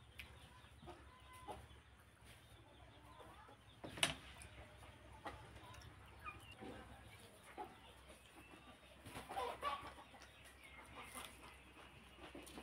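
Quiet close-up eating sounds: a hand mixing rice and curry, then chewing and lip smacking, with scattered wet clicks and small squeaks, the sharpest click about four seconds in.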